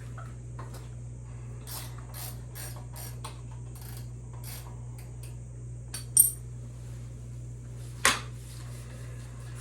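Metal hand tools handled on the bike: a run of light clicks and scrapes, then two sharp metallic clanks about two seconds apart, the second ringing briefly. A steady low hum runs underneath.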